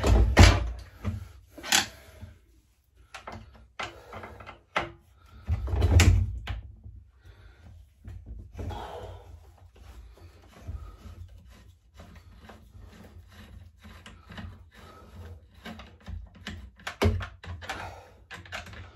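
Hand tools clicking and knocking on a Partner K650 cut-off saw as its side is taken apart with a long screwdriver extension: scattered taps and clicks, with heavier thumps near the start, about six seconds in and near the end.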